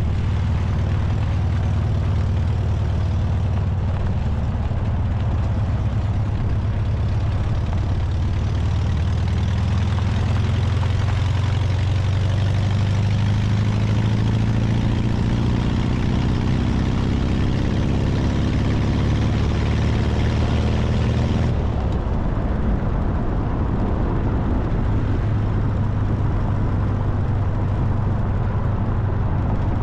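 A 1968 VW Baja Bug's air-cooled flat-four engine running while the car is driven. Its note climbs gradually as the revs rise, then drops suddenly about two-thirds of the way through.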